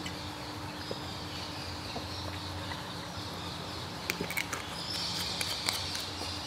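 Room tone: a steady low hum and a high hiss, with a few faint clicks and taps about four seconds in and another near the end.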